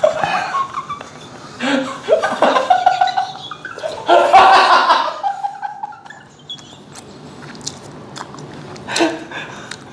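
A man laughing hard in several bursts, loudest about four seconds in, over the chewing of cold noodles.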